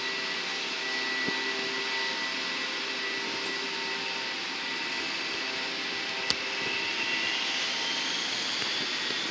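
Jet aircraft engines running with a steady rushing noise and whine. A sharp click comes about six seconds in, and after it a higher whine slowly rises.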